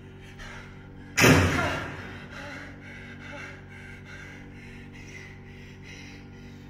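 Rapid, rhythmic gasping breaths from a performer over a steady low drone. About a second in, a sudden loud burst of noise, much the loudest thing, fades away over most of a second.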